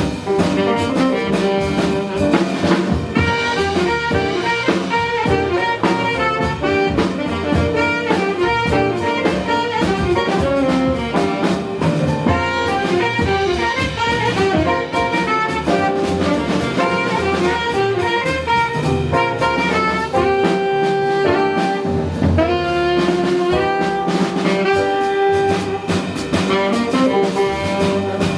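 Live jazz band playing, a tenor-range saxophone leading over piano, bass and drum kit; the saxophone runs through many quick notes, then holds long notes near the end.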